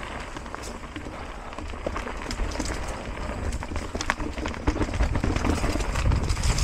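Mountain bike being ridden over a rough dirt trail: tyre noise with a low rumble and a scatter of small rattles and clicks, getting louder about two-thirds of the way through.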